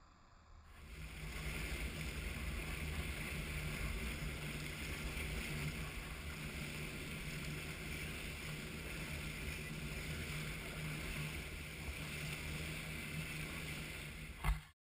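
Motorboat under way at trolling speed: a steady engine drone beneath the rush of the churning wake and wind on the microphone. The sound comes in about a second in and cuts off after a short thump near the end.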